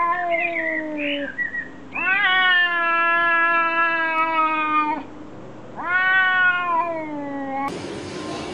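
A cat giving three long, drawn-out meows, each rising at the start and then sliding slowly down in pitch; the middle one lasts about three seconds.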